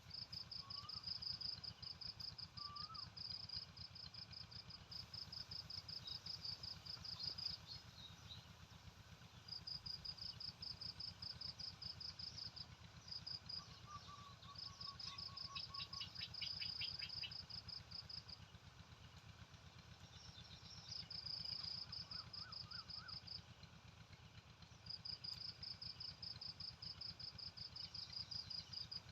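Outdoor nature ambience: long bouts of a rapid, evenly spaced high chirping, each running several seconds with short gaps, and a few brief whistled bird calls, over a steady low background rumble.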